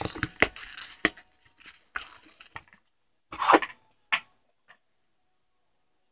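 Close handling noise of objects being moved on a tabletop: a string of sharp clicks and knocks with rustling over the first three seconds, another rustle about three and a half seconds in, and a last click just after.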